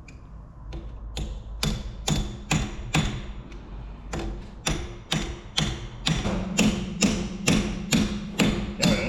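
Hammer blows on steel in a steady run of about two strikes a second. Each strike rings metallically, and the blows grow slightly quicker and louder toward the end.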